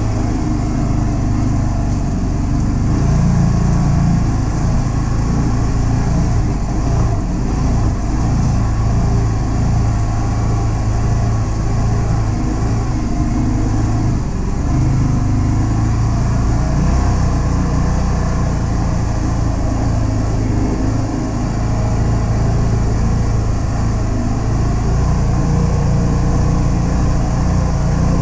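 Can-Am Defender HD10 side-by-side's V-twin engine running under way, its pitch rising and falling a little with the throttle.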